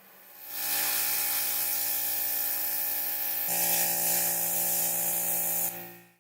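A powered spray tool hissing over a steady motor hum. It starts about half a second in, changes tone about halfway through and cuts off near the end.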